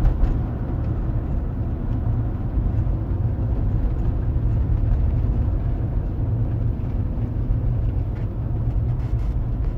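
Steady low rumble of a 2008 Chevy Tahoe Z71 driving, heard from inside the cab: engine and road noise.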